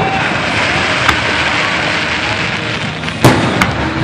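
Fireworks display: a steady hiss of burning shells for about three seconds, then a loud bang of a shell bursting, with a second bang a moment later.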